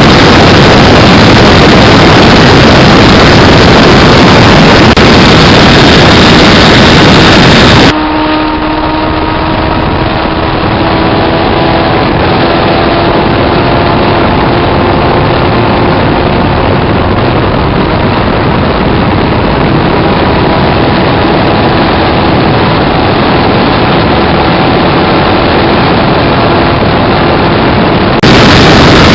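Parallel-twin motorcycle engine running loud and close, the sound dense and overloaded. About eight seconds in, a cut brings a clearer, steady engine note whose pitch creeps slowly upward. Near the end it cuts back to the loud, overloaded running.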